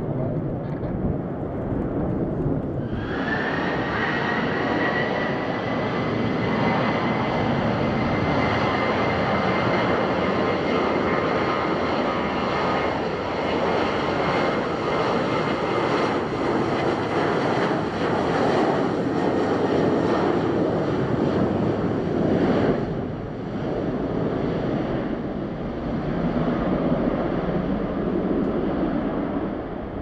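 Boeing 737-800 CFM56 turbofans at takeoff thrust: a steady, loud jet roar with a high fan whine, cutting in suddenly about three seconds in as the takeoff roll begins. Before that, a duller rumble of a jet already climbing away.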